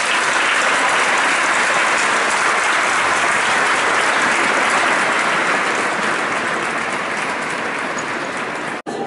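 Large crowd applauding steadily, with a sudden brief break in the sound near the end.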